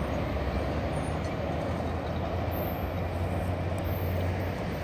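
Steady rumble of a freight train heard out of sight, with a low hum underneath that stops near the end.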